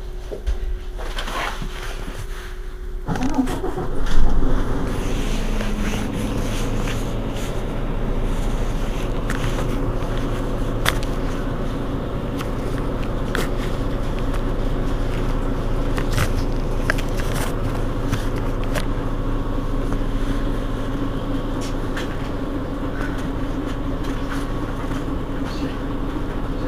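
A Mercedes-Benz Citaro G articulated city bus's diesel engine starts about three seconds in with a brief loud surge, then settles to a steady idle.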